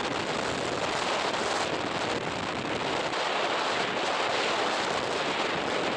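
Wind blowing hard across the microphone: a steady rushing noise.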